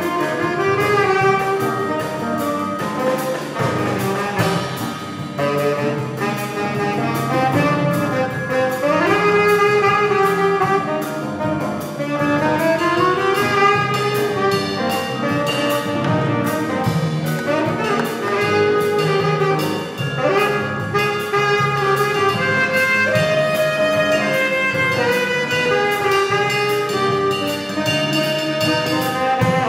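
Saxophone solo in a small jazz combo playing a bossa nova. The sax line moves in runs and slides over electric guitar chords, bass and a steady ride-cymbal pattern from the drums.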